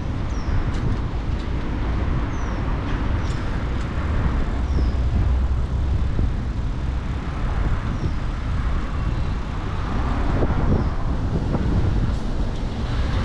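Riding noise of a bicycle on a city street picked up by a handlebar-mounted camera: a steady low rumble of tyres and air on the microphone, with car traffic around. A few faint short high chirps come through now and then.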